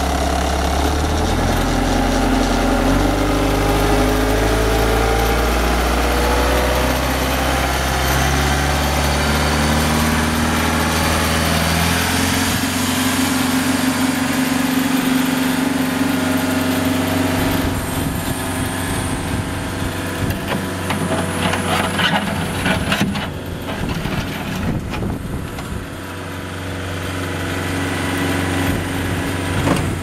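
Bobcat T190 compact track loader's four-cylinder diesel engine running, its speed rising in steps from idle over the first dozen seconds and then held steady. Irregular rattling and clanking join in for several seconds in the second half.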